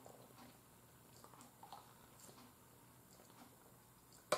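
Faint swallowing as a person drinks water from a plastic bottle, with a sharp click just before the end.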